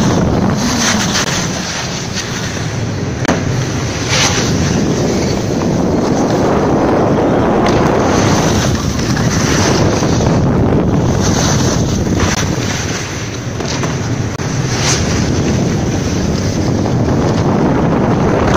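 Rushing wind noise on the microphone of a camera moving fast down a snow slope, mixed with the scraping of snowboards on the snow.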